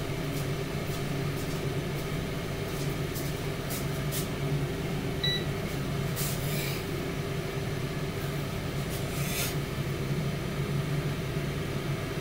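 Tower air fryer oven running with a steady fan hum while it cooks. One short electronic beep sounds about five seconds in.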